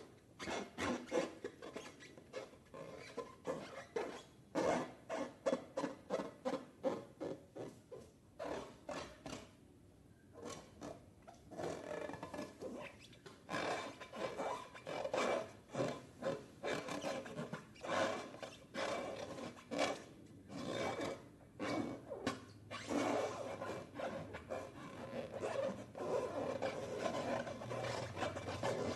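Slime being squeezed and worked by hand: a run of short, wet rubbing squishes, about two a second, easing off briefly about ten seconds in before picking up again.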